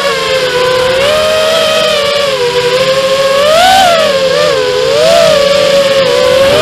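FPV racing quadcopter's four brushless motors (RCX 2206 2250 KV on a 4S battery) spinning three-blade 5-inch props, a steady whine whose pitch swells and dips several times as the throttle changes.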